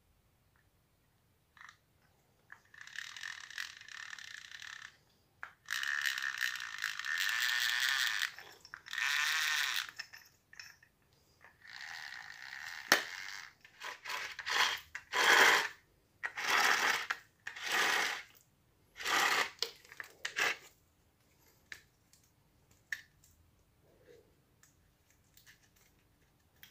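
Scraping and rubbing handling noise as the opened drill housing is moved and turned by hand. It comes in a series of bursts, longer at first and then shorter, about one a second, with a sharp click near the middle.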